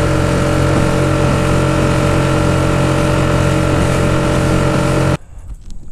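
Micro skiff's outboard motor running steadily under way, with water rushing along the hull. It cuts off abruptly about five seconds in, leaving only faint outdoor sound with a few small clicks.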